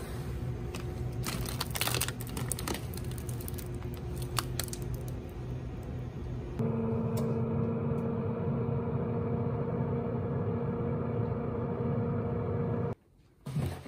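Plastic snack packaging crinkling and clicking against a steady low background hum. About halfway through, a countertop oven's fan takes over with a steady, even whirring hum, which stops suddenly near the end.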